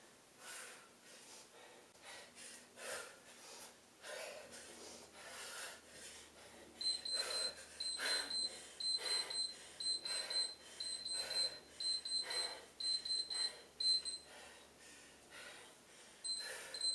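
Heavy breathing after hard exercise, with an electronic workout interval timer giving a steady run of high-pitched beeps about once a second from about seven seconds in, pausing, then beeping twice more near the end.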